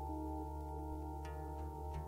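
Ambient drone music: a steady bed of layered sustained tones, with short plucked guitar notes coming in just over a second in.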